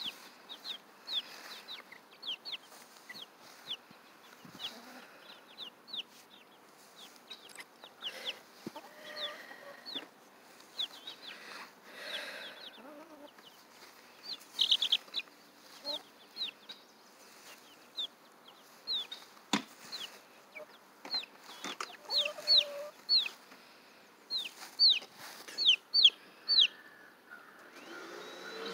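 Chicks peeping over and over, short high peeps that fall in pitch, coming in busier runs about halfway through and near the end. A few lower clucks from the hen and one sharp click come in between.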